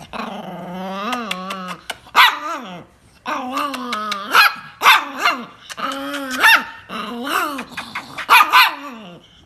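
Chihuahua growling and snarling with sharp barks in between, its growls wavering up and down in pitch: an angry display at being held.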